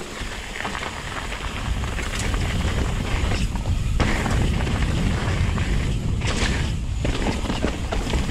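Wind buffeting the microphone of a handlebar-mounted camera on a mountain bike descending fast, with tyres rolling over dirt and rocks and the bike rattling. The rumble grows louder about two seconds in as speed builds, with sharp clacks from rocks and the chain here and there.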